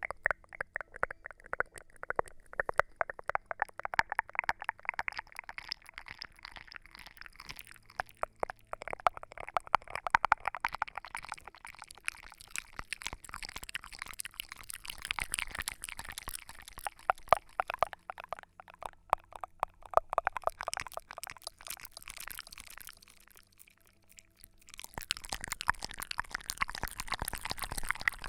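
Close-miked ASMR trigger sound: a dense run of small, rapid, irregular crackles and clicks. After a short pause near the end, a denser hissing, pouring-like sound takes over.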